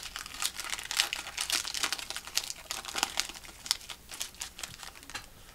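Foil Pokémon booster pack wrapper being torn open and handled: a rapid, irregular crinkling crackle.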